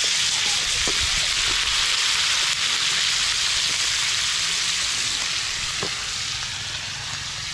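Pieces of duck for adobo frying in oil in a steel wok over a wood fire: a steady sizzle that eases a little toward the end.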